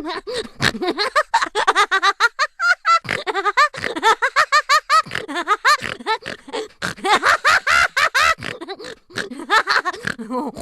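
Cartoon voice effect: high-pitched, sped-up chattering in rapid syllables, about six a second, each syllable rising and falling in pitch, with a brief lull near three seconds before it carries on and cuts off abruptly.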